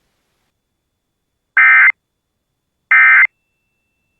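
Emergency Alert System SAME end-of-message (EOM) data bursts: short electronic tone bursts repeating a little over a second apart, two in full and a third starting at the very end, the digital signal that closes an EAS alert.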